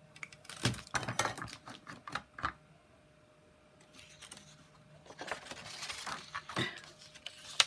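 Handling noise of craft materials on a desk: irregular clusters of small clicks, taps and rustling, with one sharper click near the end.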